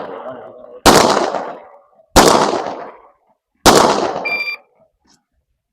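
Three pistol shots about a second and a half apart, each trailing off in a long echo. Just after the third comes a brief metallic ring, typical of a bullet striking a steel target.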